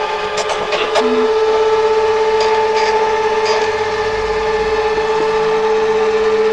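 An office machine's motor running with a steady whine. About a second in it steps slightly up in pitch and gets louder, with a handful of sharp ticks over the first few seconds.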